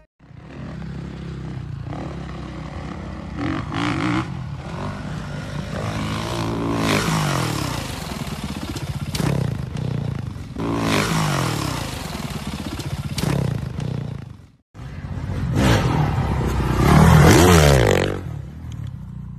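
Motocross dirt bike engines revving up and dropping off again and again, with a short break about fifteen seconds in. The loudest rev comes near the end.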